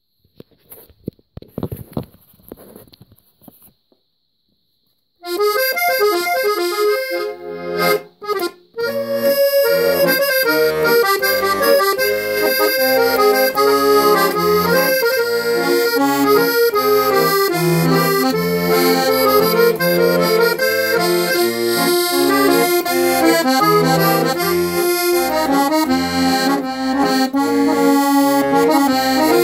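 Accordion playing an instrumental hymn introduction, sustained chords over a steady alternating bass, starting about five seconds in after a few faint handling noises, with a short break near eight seconds.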